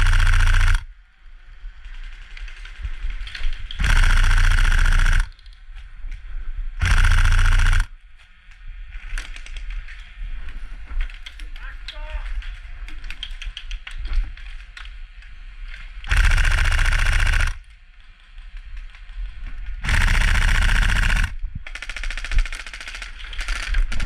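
Tokyo Marui SCAR-L airsoft electric rifle firing full-auto bursts of about a second each, five times, loud and close. Between the bursts there are faint distant voices and field noise.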